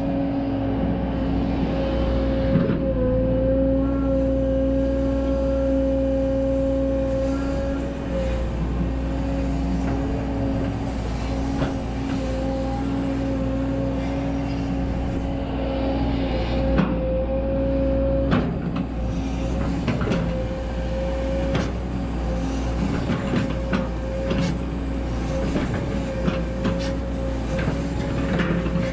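Volvo EC140DL hydraulic excavator working: the diesel engine runs steadily under a constant whine, with scattered knocks and scrapes of the bucket in stony soil, more of them in the second half.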